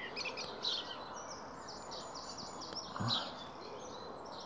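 A small bird chirping in quick repeated high notes over a steady background hiss, with a short low sound about three seconds in.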